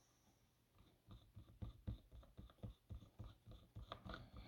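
Faint, irregular small clicks of a screwdriver turning screws into a laptop's bottom cover, a few per second, starting about a second in.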